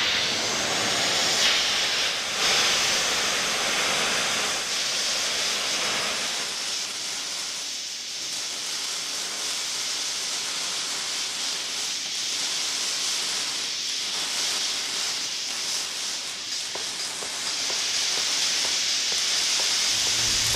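Steady sizzling hiss of burning sparks, played as a show sound effect, with faint crackles through it. It eases off somewhat in the middle and swells again near the end.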